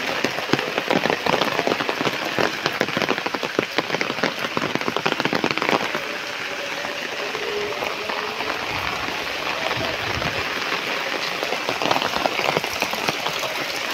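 Monsoon rain falling steadily on a wet road and foliage, a dense patter of drops that eases slightly about halfway through.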